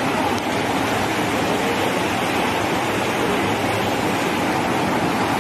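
Fast-flowing floodwater rushing, a loud and steady noise of moving water.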